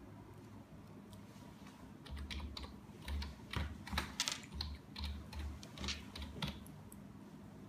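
Typing on a computer keyboard: a quick, uneven run of about a dozen keystrokes that starts about two seconds in and stops shortly before the end.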